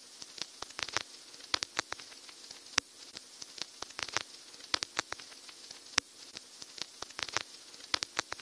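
Irregular crackling clicks and pops, a few a second at uneven spacing, over a faint hiss, like static or surface crackle.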